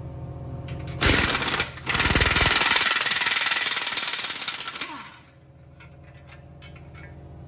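Air impact wrench hammering a 17 mm bracket bolt loose under a Toyota RAV4: a short burst, a brief pause, then about three seconds of rapid hammering as the bolt runs out.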